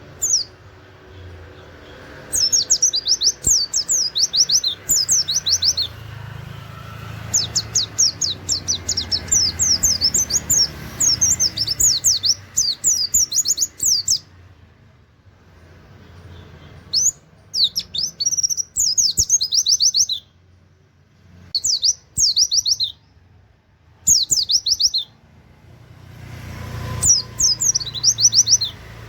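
White-eye (pleci) singing its rapid, energetic full song, delivered in the canary-like 'wit wit' style. It comes in about six bursts of fast, high, up-and-down sweeping notes, separated by short pauses.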